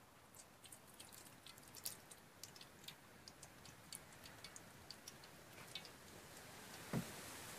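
Faint, irregular crackling ticks from a small twig fire burning under an iron wok, with one soft thump near the end.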